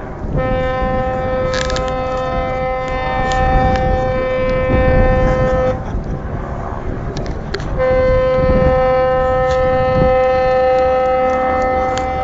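A ship's horn sounding two long, steady blasts of about five seconds each, about two seconds apart, over a low rumble of harbour and crowd noise.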